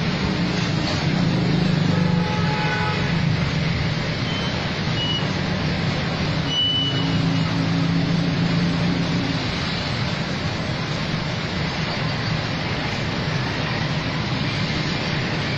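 Street traffic noise with vehicle engines running steadily and a low hum. A short pitched call sounds about two seconds in, and a few brief high tones follow a few seconds later.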